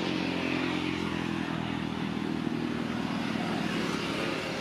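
A motor vehicle engine running steadily, a low, even hum.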